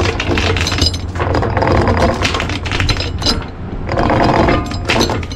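Anchor chain clattering link by link over the bow roller as the anchor is hauled up, with a steady low hum underneath.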